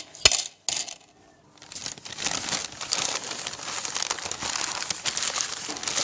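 Newspaper being crumpled and crinkled by hands, a continuous crackly rustle from about two seconds in. It is preceded by a few sharp clicks in the first second.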